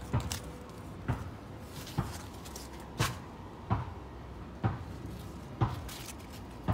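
Slow footsteps on a concrete patio, about one step a second, each a short dull thump.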